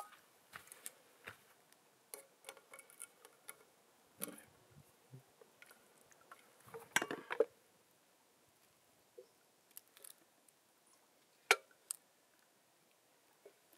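Scattered light clicks, taps and scrapes of a wooden spoon working in a stainless steel pot and against metal camp bowls as chili is stirred and spooned out. There is a louder clatter about seven seconds in and a single sharp knock later on.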